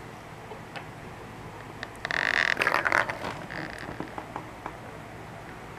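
Plastic balls rolling and rattling around the tracks of a tiered cat tower toy as a cat bats at it, a loud burst about two seconds in followed by a few light clicks.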